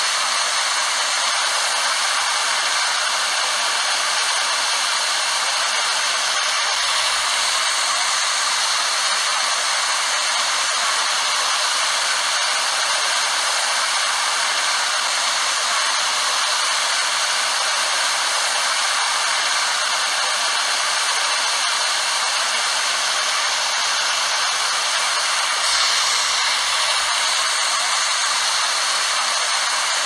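Steady rushing hiss of water falling at a waterfall, mostly high-pitched with little low rumble, unchanging in level.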